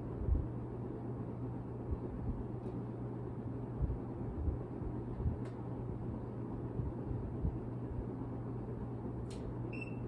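Ceiling fan running with a steady low hum and a soft rush of moving air, plus some uneven low rumbling. Near the end there is a click and a short high beep.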